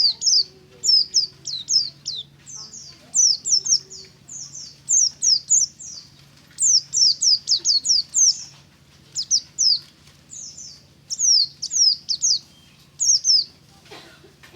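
White-eye (pleci) singing: quick clusters of short, high chirps, each falling steeply in pitch, repeated over and over with brief gaps.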